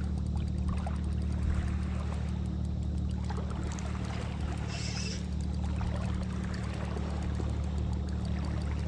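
Water lapping and trickling against a small boat's hull, over a steady low hum, with a brief high hiss about halfway.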